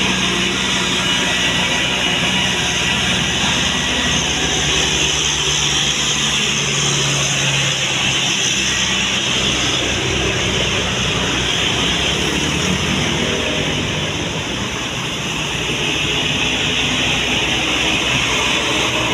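Steady loud roar of a heavy road vehicle's engine with road noise, as a tour bus runs by. No horn sounds.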